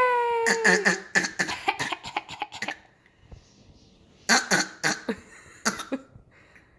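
A person fake-coughing: a voiced cough at the start runs into a quick string of coughs lasting about two seconds, then after a pause comes a second burst of a few coughs about four seconds in.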